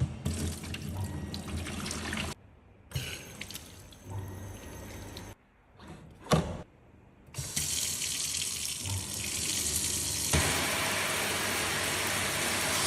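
Water running from a kitchen faucet into a sink. It comes in several short segments with abrupt cuts, then runs as a steady stream for the last five seconds.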